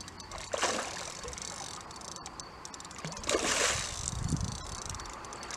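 Water splashing in two noisy bursts, a short one about half a second in and a longer one about three seconds in.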